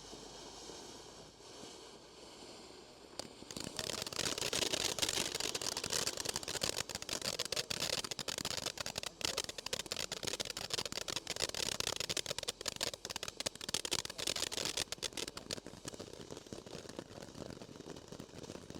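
Firehawk Rock of Ages firework fountain burning: a soft hiss, then about three seconds in a dense crackling and hissing spray starts up suddenly and keeps going, easing off near the end.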